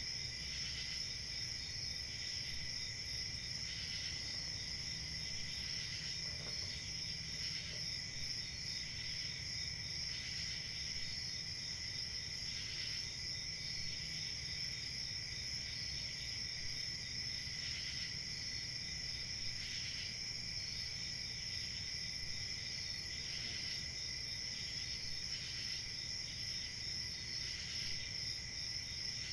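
Crickets chirping in a steady, continuous chorus, with a fainter chirp coming back every second or two.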